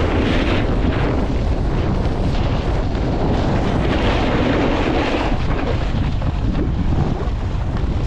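Wind buffeting the microphone, a loud, steady, rumbling rush with swells in the hiss, from moving at speed on skis.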